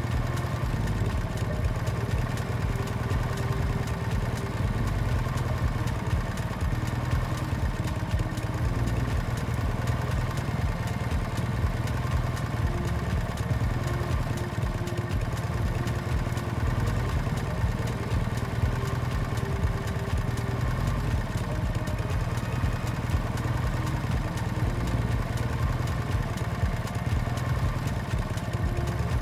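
Motorbike engine running steadily at an even speed, with a low rumble underneath.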